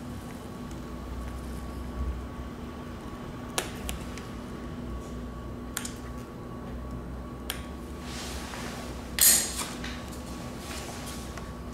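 Vinyl decal film being handled and trimmed with scissors on a motorcycle fairing: a few faint clicks, then one louder crisp rustle of the film about nine seconds in, over a steady low hum.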